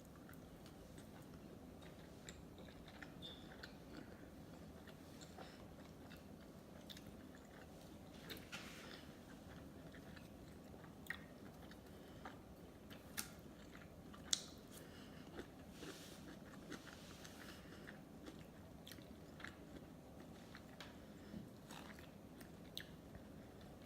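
A person chewing sushi close to the microphone: soft, wet mouth clicks and smacks throughout, with a few sharper crunchy clicks about halfway through.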